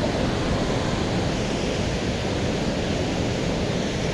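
Steady rush of water spilling over a dam, mixed with wind blowing across the microphone.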